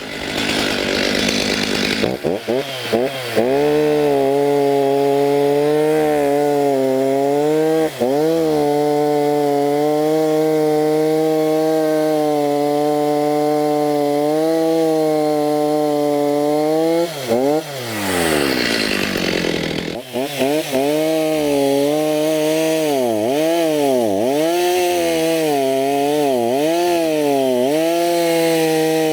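Stihl MS290 two-stroke chainsaw running at high revs during test cuts in wood. Its pitch falls and climbs back once about two-thirds of the way in, then dips again and again as the chain bogs in the cut and recovers.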